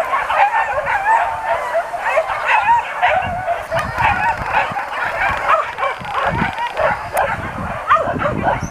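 A pack of boar-hunting dogs yelping and whining without let-up, many high-pitched voices overlapping.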